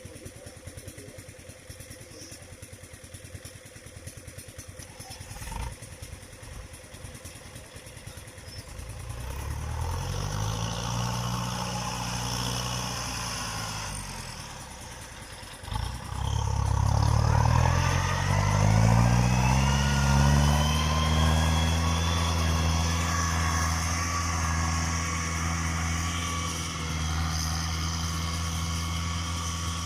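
Kubota DC105X combine harvester's diesel engine running low at first, then revved up about a third of the way in and easing back. After a brief thump about halfway, it revs up again and holds at high speed. The engine, with over 1,600 hours on it, runs smoothly.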